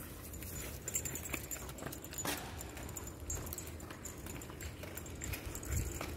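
A dog being walked on a chain leash, with scattered light taps and clicks of its steps and the leash.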